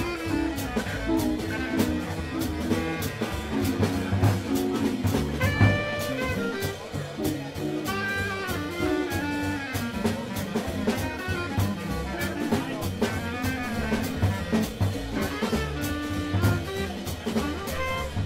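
A small jazz band playing live: piano and horns over a drum kit keeping time on the cymbals.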